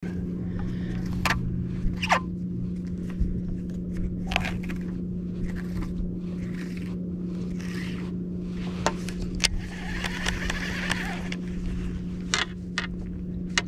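Steady hum of an electric trolling motor holding the boat on the spot under GPS autopilot, with scattered clicks and scrapes of a baitcasting reel and its line being handled as a backlash is picked out. A longer scraping rustle comes about ten seconds in.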